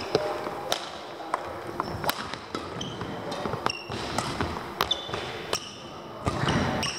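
Badminton rackets striking shuttlecocks in irregular sharp clicks, mixed with brief high squeaks of court shoes on the hall floor, echoing in a large sports hall.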